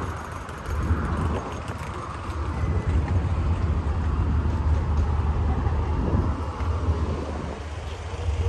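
Outdoor ambience: a steady low rumble with a noisy haze above it, and no single clear event.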